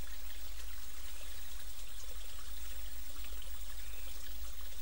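Steady rushing background noise with a low rumble underneath and a faint high hiss, unchanging throughout.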